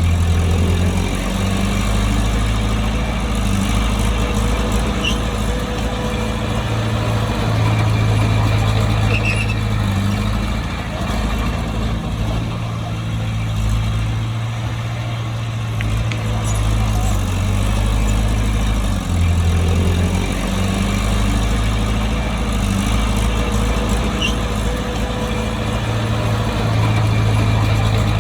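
Heavy diesel engine of a bulldozer running under load, its low note stepping up and down every few seconds as the machine works.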